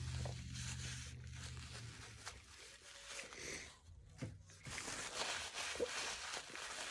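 Faint rustling and crinkling of paper being handled during a meal, with scattered small clicks, and a low steady hum for about the first two seconds.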